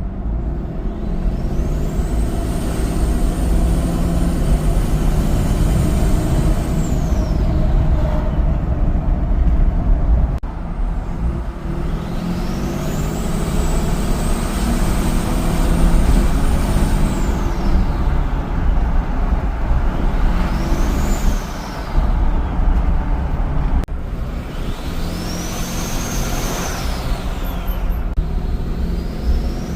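6.7 Cummins diesel in a Ram 2500 with a Hooligan billet VGT turbocharger. The turbo whistle climbs to a high pitch, holds, and falls away again several times as the turbo spools up and down. Underneath is the diesel's steady low rumble.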